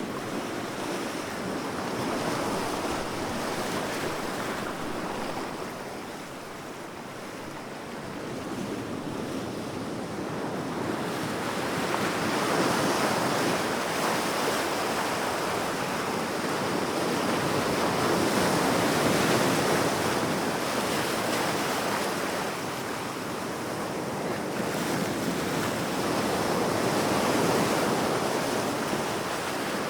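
Large ocean waves breaking on the shore, a continuous rushing wash that swells and ebbs, with stronger surges every several seconds.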